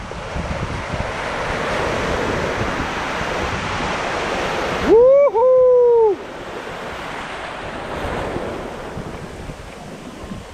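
Small surf breaking and washing up the beach, with wind buffeting the microphone. About five seconds in, a loud two-part high call cuts through: a short rising note, then a longer held one that falls away, about a second in all.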